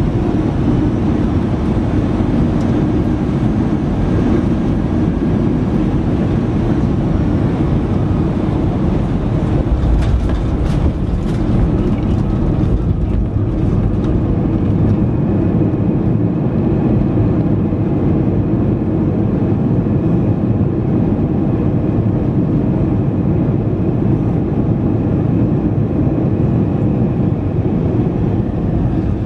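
Cabin noise of an Airbus A320 landing, heard from a window seat over the wing: a steady, loud rumble of the jet on final approach, a thump with rattling about ten seconds in as the wheels touch down, then the rumble of the rollout on the runway.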